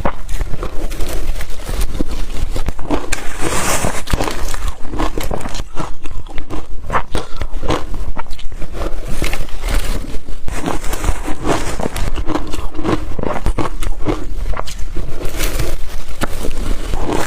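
Close-miked crunching of blender-crushed ice being bitten and chewed: a dense run of many small, sharp crunches.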